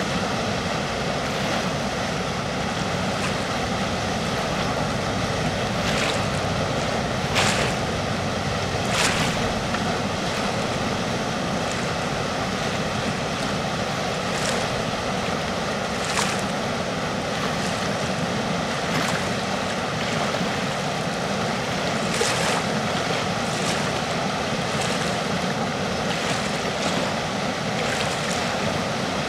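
Steady rushing of water pouring through a river dam, with a few brief sharp sounds over it, the most prominent about 7 and 9 seconds in.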